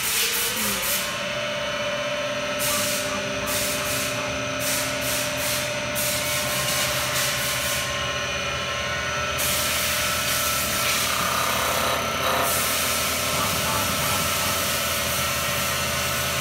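CNC wood lathe's spindle motor starting up, its whine rising in pitch over about the first second, then running steadily as it spins a wooden blank.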